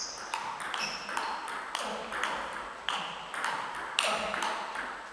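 Table tennis rally: the ball clicking off bats and table in quick alternation, about three hits a second, each hit ringing briefly and echoing in a large hall.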